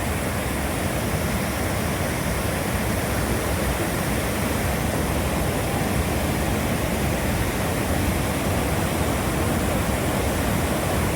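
Victoria Falls on the Zambezi: the steady roar of a heavy waterfall.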